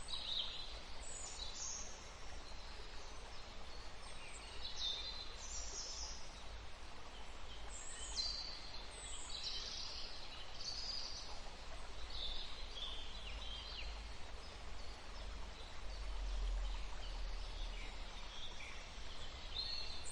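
Forest ambience: small birds calling and singing in short, high phrases, one after another, over a faint steady rush of a small stream.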